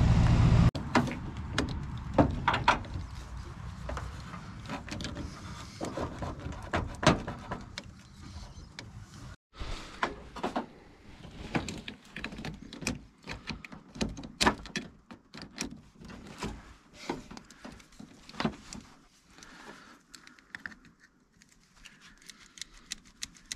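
Jumper-cable clamps clicking and rattling as they are handled and clamped onto the battery terminals of a 1990 Ford F-350, hooking up a second truck's battery for more cranking amperage. A truck engine runs for under a second at the start and cuts off.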